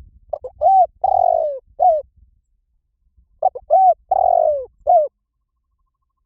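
Spotted dove cooing: two phrases of about five coos each, the middle note of each drawn out and falling, the second phrase starting about three and a half seconds in. The calling stops about a second before the end.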